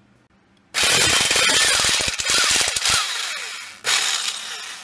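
Impact wrench hammering on the primary clutch bolt of a Polaris Trail Boss 250 to undo it. A fast run of blows starts just under a second in and lasts about two seconds, the tool runs on without blows for another second, and a second short run comes near the end.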